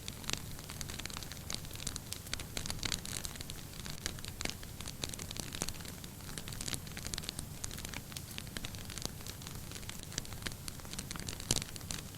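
Wood fire burning in a fireplace: irregular crackles and pops over a low rumble of flames, with one louder pop near the end.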